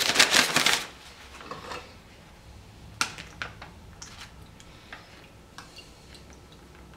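Paper filter crinkling briefly as it is lifted, then blue copper sulphate solution dripping from the wet filter into a glass beaker, in irregular drips about one a second.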